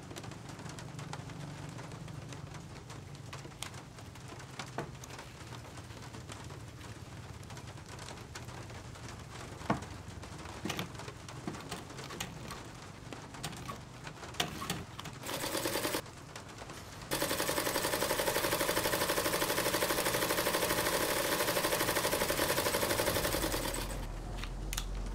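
Juki industrial sewing machine stitching: a short burst, then a steady fast run of about seven seconds with a rapid, even needle clatter that fades near the end. Before it come scattered light clicks over a low hum.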